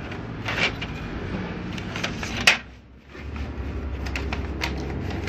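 HP Smart Tank 500 inkjet printer running a test: plastic clicks and clunks from its mechanism over a steady low motor hum, with one sharp click about two and a half seconds in.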